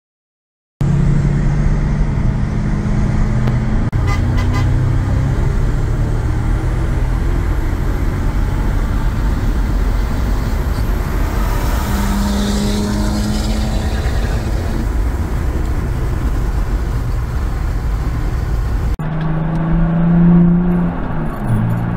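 Mercedes CL500's naturally aspirated 5.0-litre V8 at full throttle, heard from inside its cabin, its note climbing steadily under road and wind noise. After an abrupt change about 19 seconds in, a BMW 330d's big-turbo M57 diesel straight-six is heard accelerating from its own cabin, its note dropping sharply once near the end.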